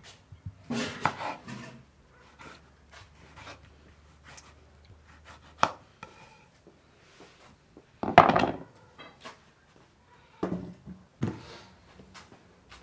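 A knife slicing through a tomato and knocking against a wooden cutting board, in separate groups of short knocks and scrapes, with a louder clatter of knocks about eight seconds in.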